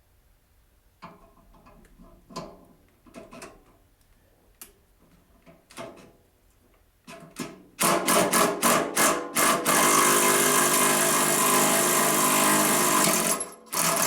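Metal knocks and clanks as tools are set against a seized bearing on a snowthrower shaft. Then, about eight seconds in, a power tool starts with a quick series of sharp strikes and runs loudly for about four seconds, working the bearing off the shaft, before cutting off abruptly.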